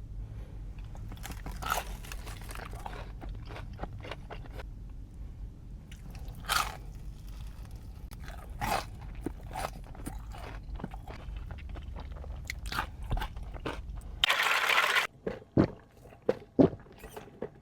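Close-miked eating of crispy fried chicken wings: scattered crunching bites, chewing and wet mouth clicks over a low steady hum. About 14 seconds in, the hum stops and a louder noisy burst lasting about a second is followed by quick sharp mouth clicks.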